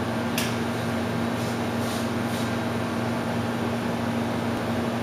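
Electric hair clippers buzzing steadily while cutting hair at the nape of the neck, with a few short high rasps in the first couple of seconds.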